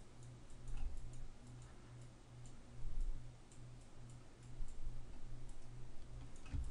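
Faint, scattered clicks of a computer mouse over a low, pulsing background hum.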